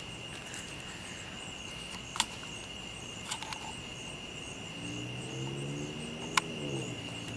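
Night insect chorus of crickets or katydids: a steady high-pitched drone with a faint pulsing trill above it. Two sharp clicks sound, about two and six seconds in, and a low hum with several stacked pitches comes in about five seconds in.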